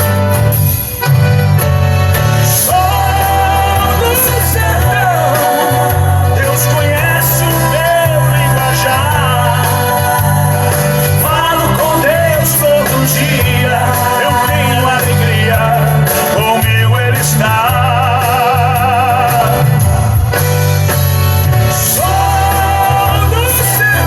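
Music: a Brazilian country-style gospel praise song, with a steady bass line under a melodic lead that wavers with vibrato.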